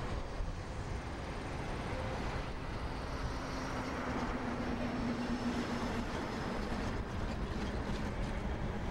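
Road traffic going by: a steady rush with a low engine drone that is strongest from about three to six seconds in.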